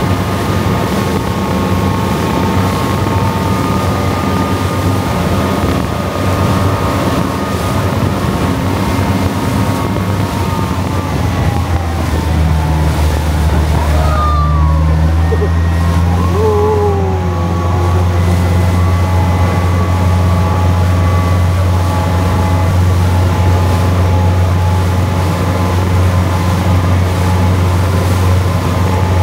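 Sightseeing boat's engine running with a steady low hum, growing stronger about halfway through.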